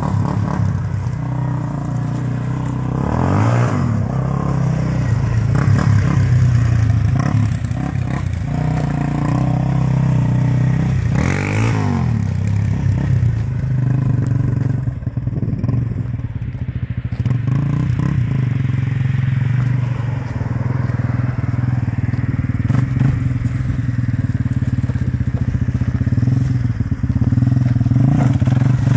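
Yamaha Raptor 350 quad's single-cylinder four-stroke engine running, with the revs rising and falling a few seconds in and again around halfway.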